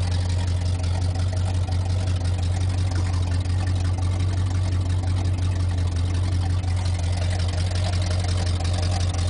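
1978 Ford F-150 4x4's engine idling steadily, an even low drone with no revving.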